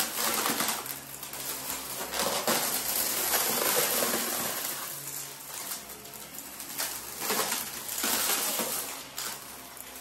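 Stick vacuum running over a rug, sucking up scattered glitter and confetti; its noise swells louder three times as the head is pushed through the debris.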